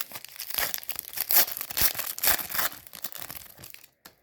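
Plastic foil trading-card pack wrapper being torn open and crinkled by hand, a dense crackling rustle that dies away near the end.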